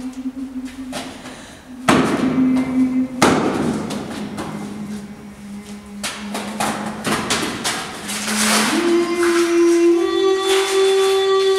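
A voice holding long wordless notes, stepping lower after a couple of seconds and then rising in two steps near the end. Two heavy thuds, about two and three seconds in, ring on in a reverberant concrete room.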